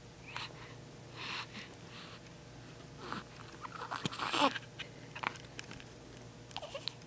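A baby's small grunts, squeaks and snuffly breathing noises while he strains to belch, with a louder short squeal of wavering, falling pitch about four seconds in.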